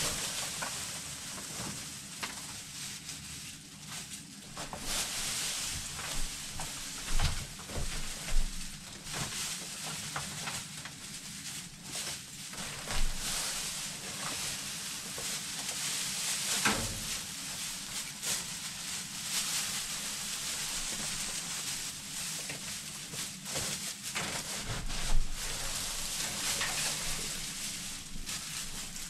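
Dry straw bedding rustling and crackling as it is pulled up and tossed by hand, with scattered sharp clicks and a few louder knocks.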